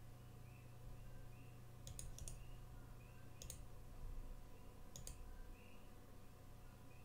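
A few light computer-mouse clicks: a quick pair about two seconds in, then two single clicks over the next three seconds. Beneath them are a steady low hum and faint high chirps repeating in the background.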